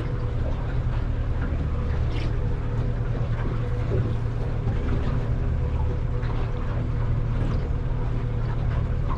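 A boat's engine running steadily, heard on board as a continuous low drone with a steady hum.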